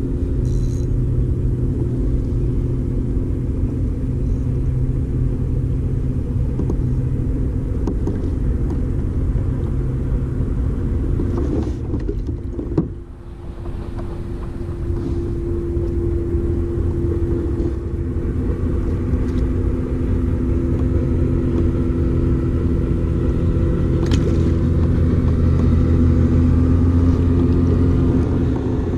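Steady motor hum with several held low tones, dipping briefly about 13 seconds in and growing a little louder toward the end.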